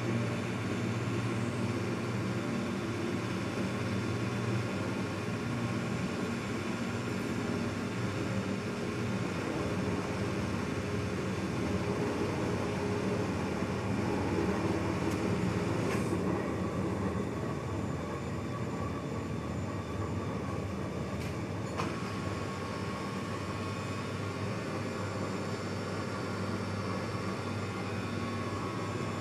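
Rubber-processing machinery, a two-roll rubber mill and a kneader, running with a steady mechanical drone and hum. Two faint clicks come in the second half.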